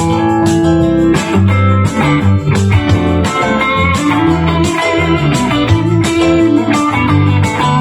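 Overdriven electric guitar, a Stratocaster with Lace Sensor pickups through a tweed-style amp, playing along with a rock backing track with bass and a steady drum beat.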